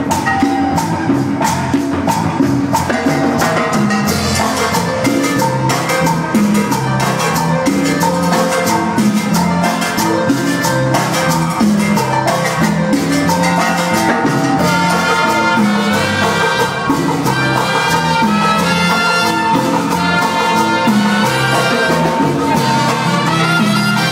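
Live cumbia band playing, with percussion keeping a steady, even beat under the full band. About halfway in, clearer sustained melodic lines come in over the rhythm.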